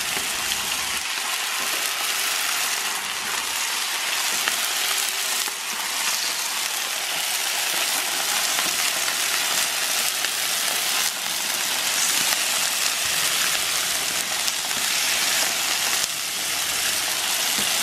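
Raw chicken breasts sizzling in oil on a hot Blackstone flat-top griddle, a steady dense crackling hiss as more pieces are laid down.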